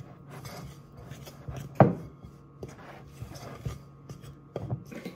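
A spoon stirring crumbly dumpling dough in a glazed ceramic mixing bowl: scraping with a few sharp knocks against the bowl, the loudest about two seconds in.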